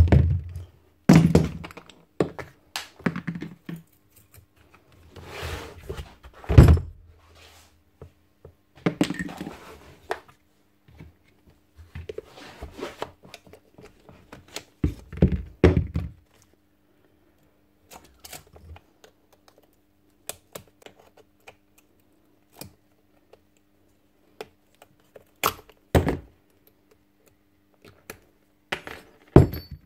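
Metal parts and tools knocking and clattering on a workbench as a Bosch GSH 11 E demolition hammer is stripped down. Irregular knocks and thuds come thickly in the first half, the loudest about six and a half seconds in, then sparser small sharp clicks.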